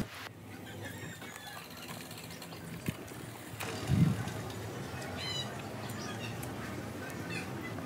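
Quiet outdoor background with a few faint bird chirps a little past the middle, and one dull thump about four seconds in.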